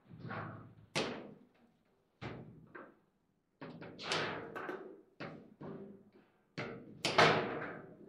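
Table football being played: the ball knocking against the plastic figures and the table's walls, with the rods clacking, in a string of sharp knocks at irregular intervals. The loudest hit comes about seven seconds in.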